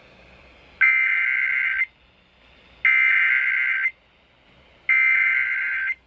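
Emergency Alert System SAME header played over a radio: three bursts of a buzzy two-pitched digital data tone, each about a second long and about a second apart, marking the start of an emergency alert.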